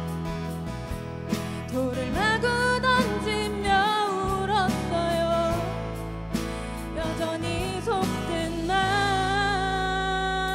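Live band playing a song, with electric and acoustic guitars, bass, drums and keyboard. A lead vocal comes in about two seconds in, singing a melodic line and holding a long note near the end.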